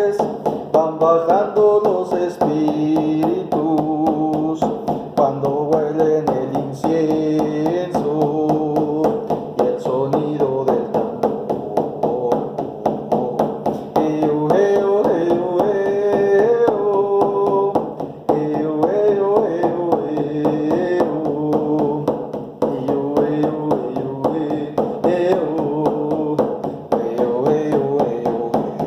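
Instrumental section of a drum-led song: a steady drum beat under a melody that steps from note to note.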